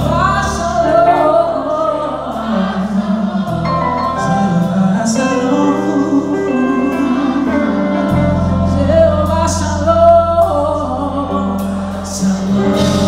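Live gospel worship band playing: voices singing over stage keyboard, electric bass and drums, with cymbal hits. Long held bass notes change twice.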